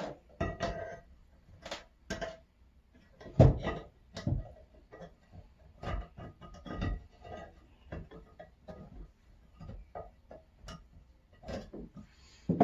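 Metal vise parts clinking and knocking together as they are handled and fitted during reassembly: irregular sharp clacks, some ringing briefly, with short pauses between.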